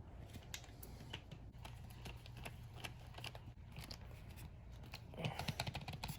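Faint, irregular small clicks and taps of a long screw being driven by hand into a steering wheel assembly, with a busier run of clicks near the end.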